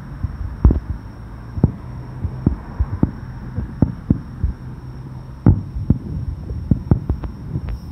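Aerial fireworks shells bursting, an irregular string of booms and sharp cracks, the loudest about five and a half seconds in, over a low steady hum.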